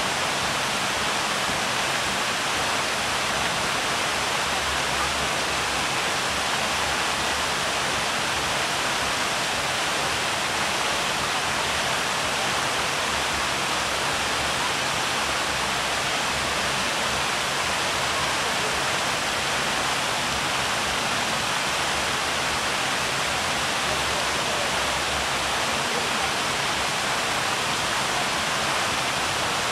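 Buckingham Fountain's jets and cascades spraying and falling into its basin: a steady, unbroken rush of splashing water.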